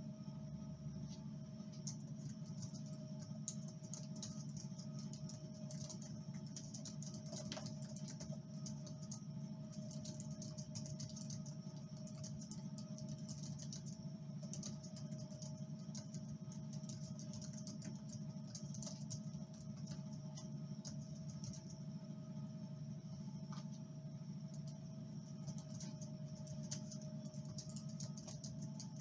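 Typing on a computer keyboard: light, irregular key clicks throughout, over a steady low hum.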